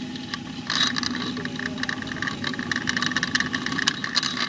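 Rapid scratching and clicking of hands working on ceiling fan parts, starting about a second in, over a steady low hum.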